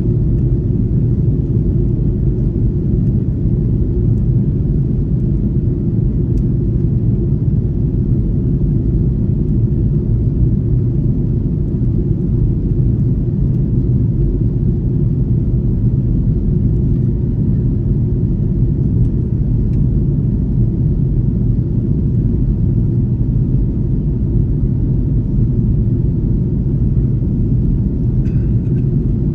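Cabin noise inside an Airbus A330-300 airliner in flight: a steady, even, low rumble of airflow and engines.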